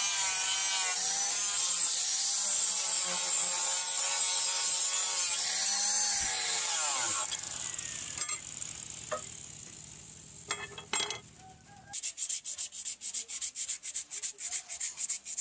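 Angle grinder with an abrasive disc grinding the steel edge of a hand-forged axe head: a steady high whine that wavers as the disc is pressed on. It runs down and stops about seven seconds in. After a few light knocks, quick rubbing strokes follow near the end, about four a second, as a cloth is wiped over the axe blade.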